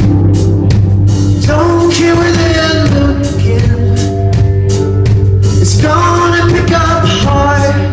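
Live rock band playing loud and steady: drum kit with regular cymbal hits over a steady bass line, with a singing voice coming in twice, about one and a half seconds in and again near the end.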